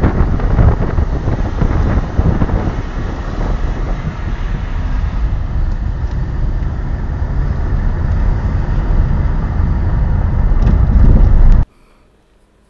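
Road and wind noise from a moving car, a loud, steady rumble heavy in the low end, heard from a camera riding in the vehicle. It cuts off suddenly near the end.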